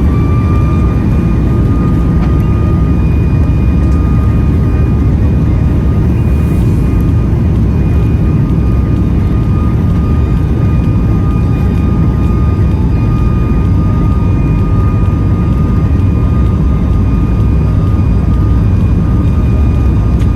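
Boeing 737 MAX 9's CFM LEAP-1B jet engines at high thrust, heard inside the cabin: a loud, steady roar with a steady high whine over it.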